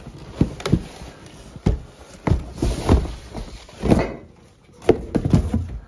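Corrugated cardboard shipping box being opened and handled: flaps rubbing and scraping against the shoeboxes inside, with a string of dull knocks and thumps as the boxes are shifted and one is pulled out.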